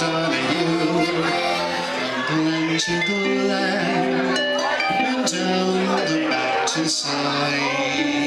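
Live solo accordion music with chords and long held melody notes, played between songs, with a short break about three seconds in where the tune changes.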